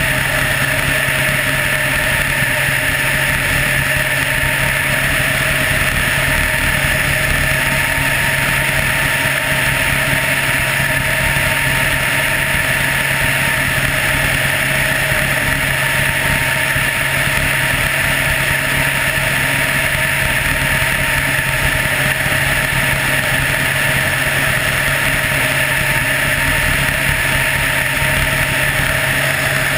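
Helicopter in flight: the steady drone of its engine and rotors, holding an even pitch and level throughout.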